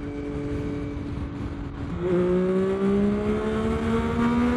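Yamaha Tracer 9 GT's three-cylinder engine heard from the saddle, running steadily at first. About two seconds in a gear change drops the revs, then the engine gets louder and the revs climb steadily under hard acceleration.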